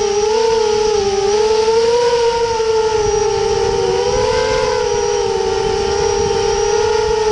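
Electric motor and propeller whine of an FPV model aircraft in flight: a steady, high-pitched whine whose pitch drifts gently up and down as the throttle changes, over a rough rush of air.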